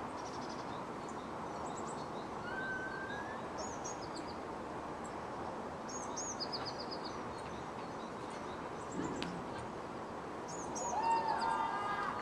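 Steady city background hum with small birds chirping in short, high, repeated notes every few seconds. A louder, lower call with several stacked tones sounds about eleven seconds in.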